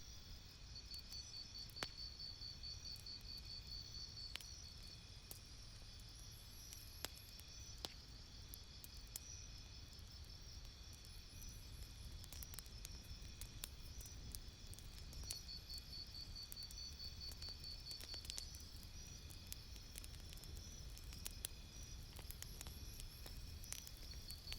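Campfire crackling, with scattered sharp pops over a low steady rumble. High, rapidly pulsing chirps come in bouts, the longest near the start and near the middle.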